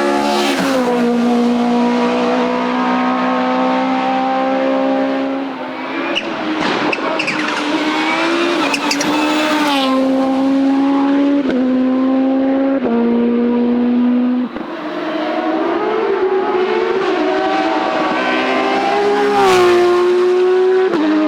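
Racing car engine revving hard, its pitch holding high and then stepping and gliding up and down several times through gear changes and throttle lifts.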